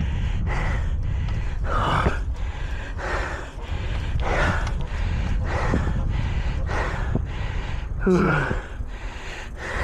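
A winded adult cyclist's fast, heavy gasping breaths, one about every half second to second, with a short voiced groan about eight seconds in.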